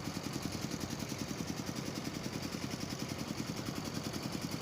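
An engine running steadily at idle, a low, even throb with regular quick pulses.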